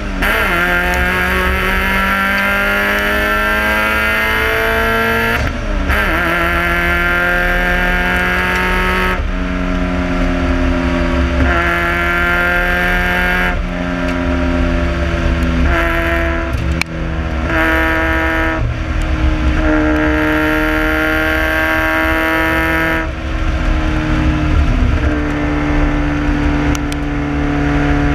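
Toyota Starlet race car's 1.3-litre 4E-FE four-cylinder engine driven hard on track. Its pitch climbs under acceleration and drops abruptly at each of several gear changes and lifts, over constant road and wind noise.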